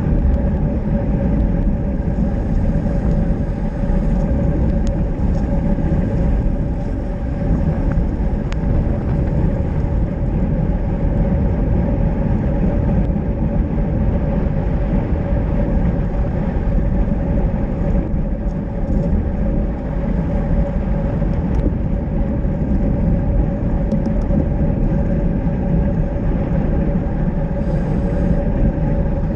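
Steady wind rushing over a handlebar-mounted camera on a bicycle at speed, with tyre noise on wet asphalt.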